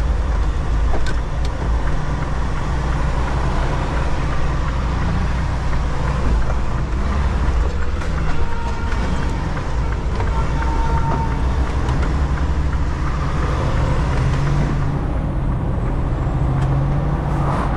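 Semi truck's diesel engine and road noise heard from inside the cab, a steady low rumble.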